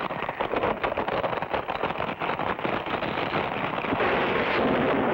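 Cartoon sound effect of a sandstone rock bridge collapsing: a dense crackling rumble of crumbling, falling rock. The crackle gives way to a steadier rush about four seconds in.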